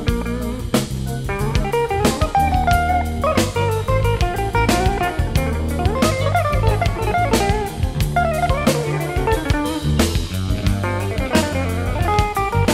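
Jazz-funk band playing an instrumental: electric guitar lines over electric bass and drum kit.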